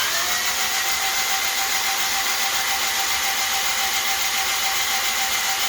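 A suction device running steadily, with a loud even rushing hiss and a steady whine that rises slightly right at the start and then holds.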